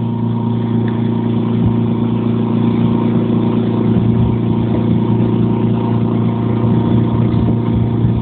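Air-conditioning condensing unit running: a steady, loud hum of the compressor and condenser fan, unchanging throughout.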